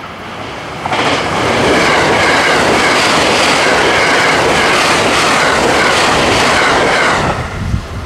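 Limited express electric train passing close by at speed: a loud rush of wheel-on-rail noise that swells about a second in, holds steady for about six seconds, and falls away suddenly as the last car clears.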